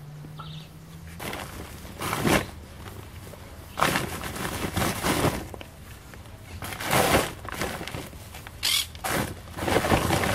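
Irregular rustling and crunching of a woven plastic sack and dry grass as cut prickly pear pads are picked up and dropped into the sack, in a series of short noisy bursts.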